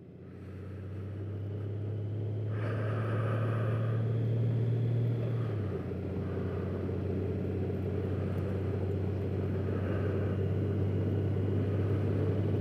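Honda Gold Wing's flat-six engine running as the motorcycle rides along, a steady low hum that fades in over the first couple of seconds and drops slightly in pitch about halfway through.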